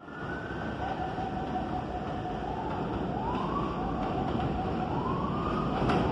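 NYC subway train approaching along elevated tracks, a steady whining tone stepping up in pitch twice, over a rumble of wheels on rails that grows louder.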